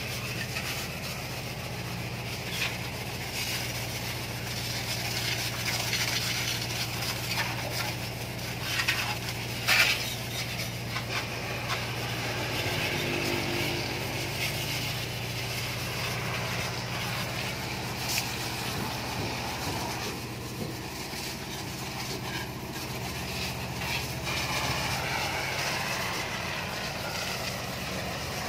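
Pressure washer running: a steady motor hum under the hiss of the water jet spraying motorcycles. The hum eases about twenty seconds in, with a few brief louder splashes and clatters along the way.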